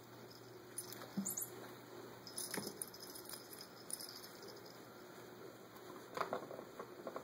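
Faint, short jingles of a kitten's collar bell now and then, with soft taps and scuffs of paws on the carpeted cat tree.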